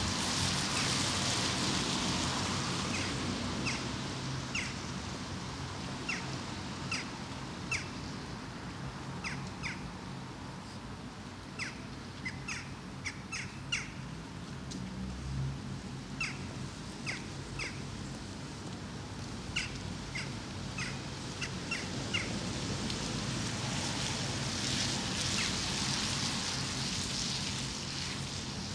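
Small birds chirping: many short, separate calls scattered through the silence, over a steady outdoor hiss that swells at the start and again near the end.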